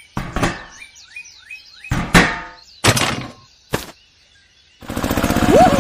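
A few dull thuds, with a string of short, quick, falling chirps between them. Near the end a small motor starts running steadily, with a whistle that rises and falls over it.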